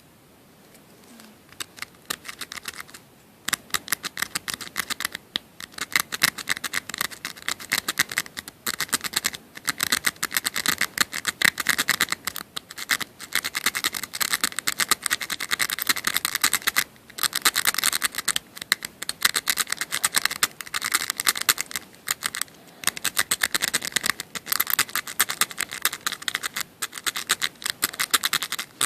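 Lock pick raking the pins of a Master Lock M15 five-pin padlock: rapid metallic scratching and clicking in long runs, broken by a few short pauses. It starts about a second and a half in.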